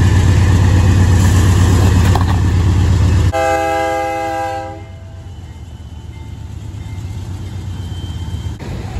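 BNSF diesel-electric locomotive passing close by: a heavy low rumble, then about three seconds in a single horn blast sounding several notes at once for about a second and a half. After the horn the locomotive runs on with a softer rumble.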